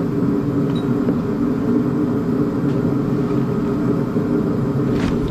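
A steady low mechanical drone with a few faint clicks over it.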